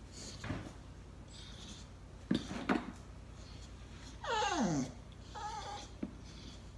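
English bulldog whining in frustration at a rope toy he can't reach: one long whine that drops steeply in pitch, then a shorter, higher whimper. Earlier come two short, loud sounds about half a second apart.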